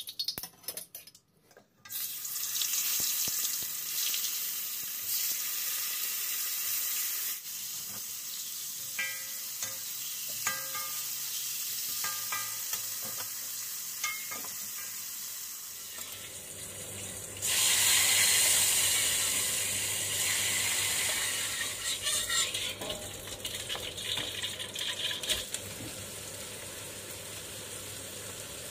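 Tuna steaks and then chopped onion sizzling as they fry in hot oil in a wok, a steady hiss that starts about two seconds in and swells louder a little past halfway. A metal spatula clinks and scrapes against the wok now and then.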